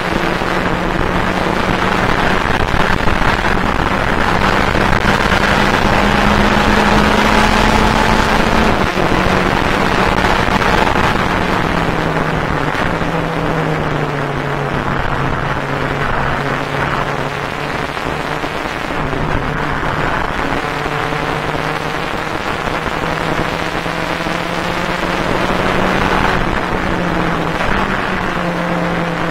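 Fun Cup race car's Volkswagen engine at racing speed, heard from inside the cockpit over a constant rush of road and wind noise. The engine note climbs slowly, drops sharply about nine seconds in, steps down lower over a few seconds around the middle as the car slows, then climbs again.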